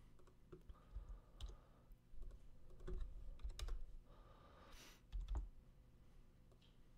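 Faint, scattered clicks of a computer mouse and keyboard keystrokes, irregular and a second or so apart.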